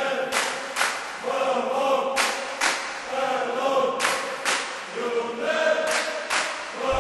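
A group of voices singing together, with a pair of sharp beats or claps about every two seconds.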